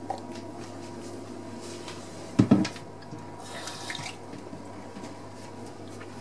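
Bowl of sugar icing with a metal spoon in it set down on a glass-ceramic hob: a loud double knock about two and a half seconds in, with a few small clicks and a steady low hum behind.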